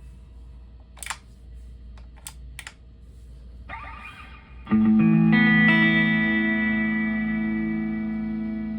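Electric guitar through a Tank-G distortion effects setup: steady hum and a few sharp clicks, then, about four and a half seconds in, a distorted chord is struck and left ringing, slowly fading.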